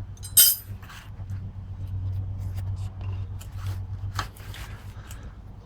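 Hand tools and metal hydraulic fittings clicking and scraping during hose removal, with one short harsh scrape about half a second in as the loudest sound, over a steady low hum.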